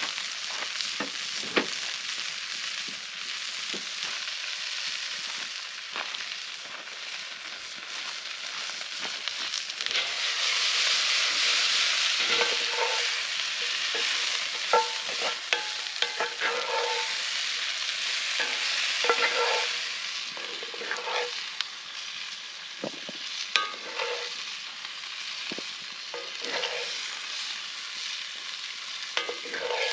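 Food sizzling in a frying pan over a campfire, louder for a stretch about a third of the way in, with a metal utensil repeatedly scraping and clinking against the pan.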